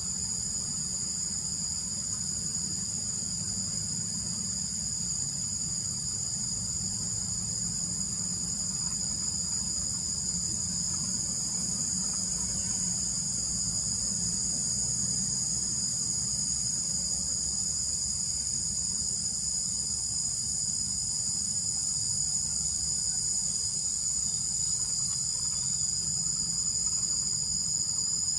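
Steady chorus of insects such as crickets, several high-pitched tones held without a break, over a low rumble.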